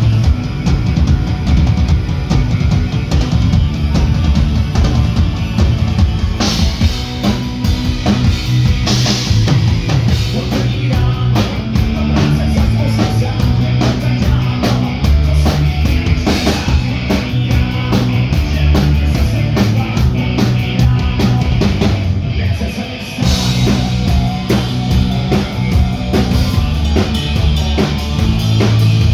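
Rock band playing with a full drum kit, loud and continuous, dropping back briefly about three-quarters of the way through before the full band comes back in.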